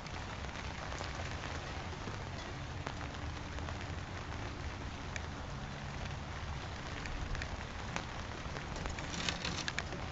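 Steady rain falling and pattering on a wet patio, picked up by an outdoor security camera's microphone. A short cluster of sharp clicks comes near the end.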